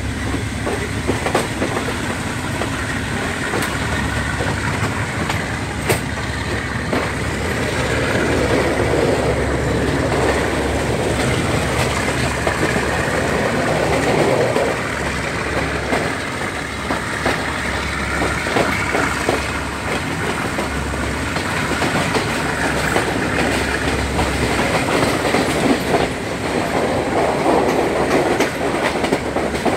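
Diesel-hauled passenger train running, heard from an open carriage window: a steady rumble of the moving carriages, with the wheels clicking repeatedly over rail joints and points.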